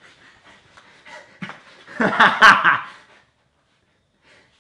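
A man groaning with strain as he struggles against plastic cuffs: faint rustling, then one loud drawn-out groan about two seconds in.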